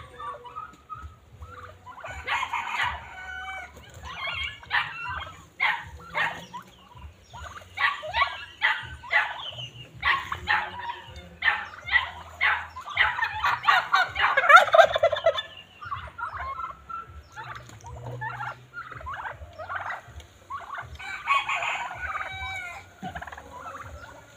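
Domestic turkeys gobbling over and over, in several bursts of quick rattling calls, with the loudest burst about two-thirds of the way through.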